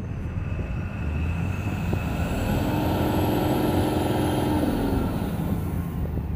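Cummins diesel engine of a Tata BS6 Phase 2 tipper revved from idle up to about 2,400 rpm, held there for a couple of seconds, then falling back as the throttle eases. It now revs freely: the engine would not rev past about 1,300 rpm until a bent diesel feed pipe was straightened.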